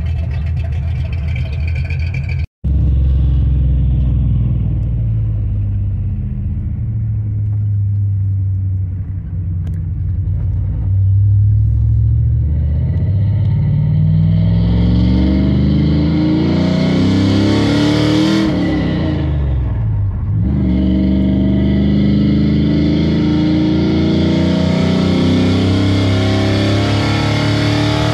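Cammed engine of an OBS Chevy pickup with a new Summit Racing Max Performance carburetor, first idling with the lope of a wilder cam. After a brief cut-out it is heard from inside the cab as the truck accelerates. The revs climb steadily, drop at a gear change about two-thirds of the way through, then climb again.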